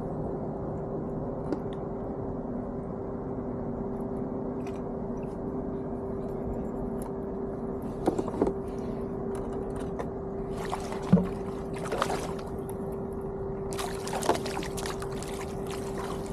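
A kayak under way while trolling: a steady hum holding one constant tone, with water running along the hull. A few sharp clicks and knocks come in the second half, and splashy noise near the end as a hooked trout is brought to the landing net.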